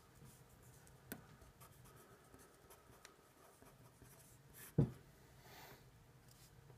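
Faint scratching of a Sharpie felt-tip pen writing on paper. There is a light tap about a second in and a louder single knock just before five seconds.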